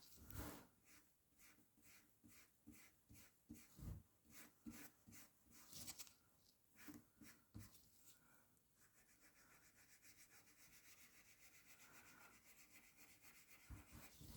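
Faint, repeated rubbing strokes of hand-polishing on a trading card's surface, to work out remaining scratches. After about nine seconds the strokes give way to a steadier faint hiss.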